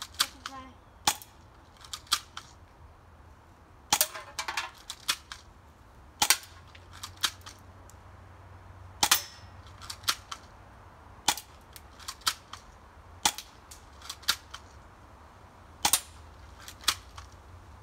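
Cheap airsoft pistol firing BBs one shot at a time: about twenty sharp pops at irregular intervals, roughly a second apart, some followed at once by a second click as a BB strikes the tin can target.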